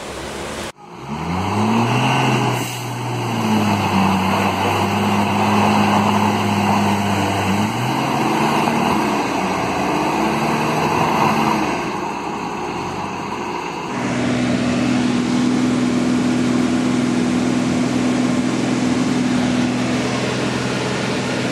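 Vehicle engine revving up and holding a steady pitch, dropping back about eight seconds in, then picking up again. After a sudden change about fourteen seconds in, a heavy truck's engine drones steadily under load as it tows a pickup through mud.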